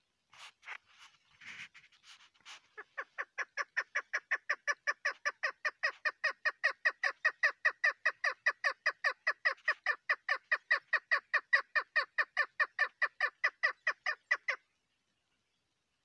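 Chukar partridge calling: a few scattered notes, then a long, even run of short, sharp 'chuck' notes at about four a second that builds up over the first few seconds, holds steady and stops abruptly near the end.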